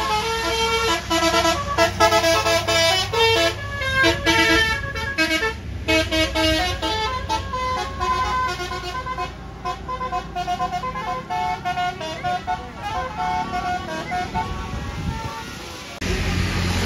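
Basuri 'telolet' bus horn, a multi-trumpet musical air horn, playing a fast tune of stepped notes over the low hum of the bus engine. The tune cuts off about a second before the end, and louder engine noise takes over.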